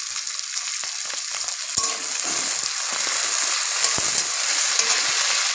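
Chopped tomatoes and onions sizzling in hot oil in a kadai (wok), stirred with a metal spatula that clicks and scrapes against the pan. The sizzle gets louder about two seconds in.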